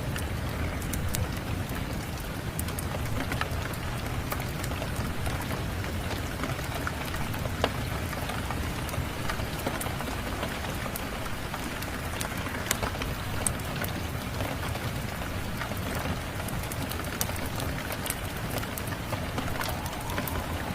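Steady rain falling, with scattered sharp crackles and pops from a wood fire in a fireplace.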